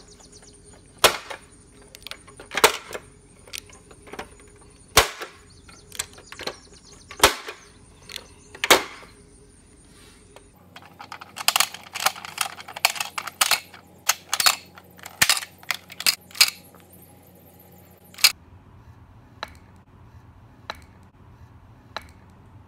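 Plastic pop-up toy's lids and buttons snapping as they are pressed shut and worked by hand: sharp clicks about once a second, then a quick flurry of clicks, with a few fainter knocks near the end.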